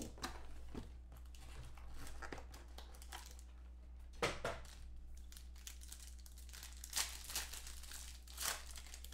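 Foil trading-card pack wrapper crinkling as it is handled and torn open, in several short rustling bursts, the loudest about four seconds in.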